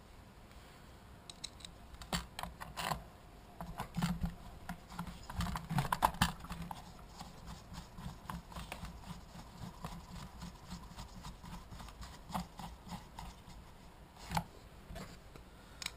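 Starter housing being fitted onto a Stihl 026 chainsaw and its screws turned in with a T-handle driver: scattered light clicks and knocks of plastic and metal, busiest in the first half and again briefly near the end.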